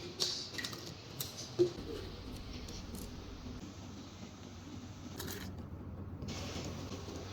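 A few light clicks and taps of small objects being handled, spread irregularly, over a faint steady low hum.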